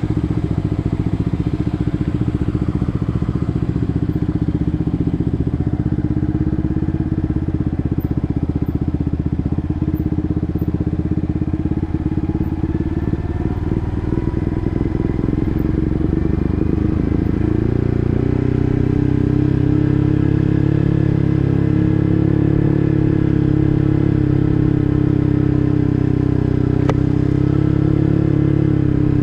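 Yamaha MT15's single-cylinder engine through an SC Project full-system exhaust, riding at steady revs. The note loosens and wavers around the middle. A little over halfway the throttle opens, and it holds a louder, stronger note until easing off right at the end.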